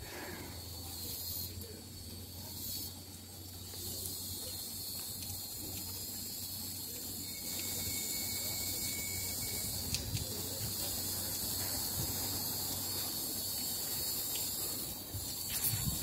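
Steady, high-pitched insect chorus in tropical greenery, with a low rumble underneath.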